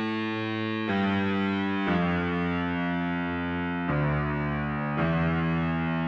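PPG Infinite Pro software synthesizer playing its 'New Fuzz' patch in mono. Low sustained notes run one into the next, and the pitch changes four times.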